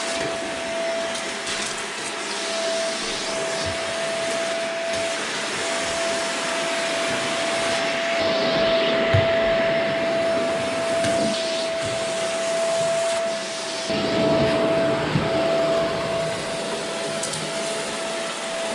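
Upright vacuum cleaner running, its hose wand sucking along the carpet edge at the baseboard: a steady motor whine over a rush of air. The cleaner is pre-vacuuming dirty carpet before it is cleaned.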